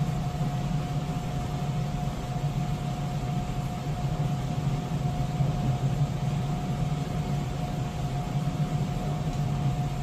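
Steady machine hum, low and unchanging, with a thin constant whine above it.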